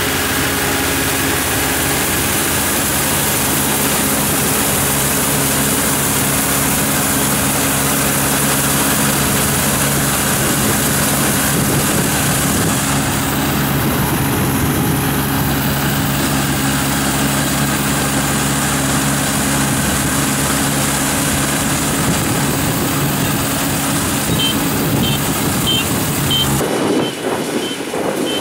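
Rice combine harvester's engine and harvesting machinery running steadily at a constant pitch while it cuts lodged rice. Near the end the sound cuts suddenly to a more distant engine with wind buffeting the microphone.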